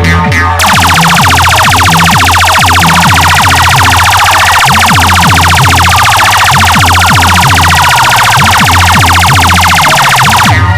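Electronic siren-like alarm effect, a very fast pulsing buzz, blasted over a deep bass beat on a DJ sound system; it starts about half a second in and cuts off near the end, with the bass beat carrying on.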